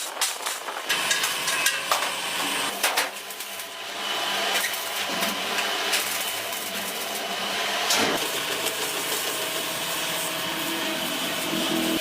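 Factory metalworking machinery: a quick run of sharp metal knocks and clatter for the first three seconds or so, then a steady machine hum with an occasional knock.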